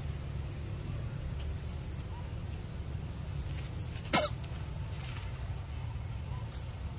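Steady high insect drone over a low background rumble, broken about four seconds in by one short, sharp sound, the loudest moment.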